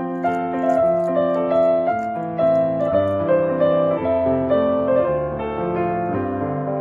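Background piano music: a slow melody of held notes over lower chords.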